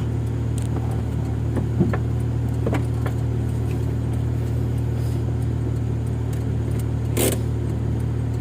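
A motor vehicle's engine running steadily with a constant low drone, with a few brief knocks or rattles, the loudest near the end.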